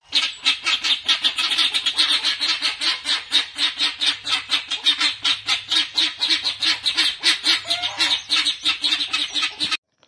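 Helmeted guinea fowl calling: a rapid, harsh, rattling run of repeated notes, about five a second, cutting off suddenly near the end.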